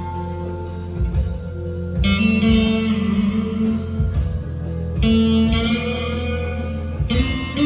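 Squier Deluxe Stratocaster electric guitar on a clean tone, playing sustained lead notes over a backing track with bass and drums. New notes are struck about two, five and seven seconds in.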